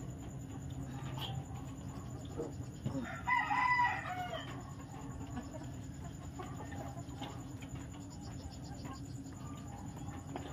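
A rooster crows once about three seconds in, a pitched call that falls away at its end, over a steady low hum.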